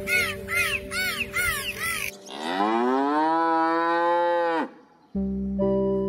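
A cow mooing once, one long call that rises in pitch and then holds for about two and a half seconds. Before it comes a quick run of repeated high chirps, and after a short gap, held musical chords start.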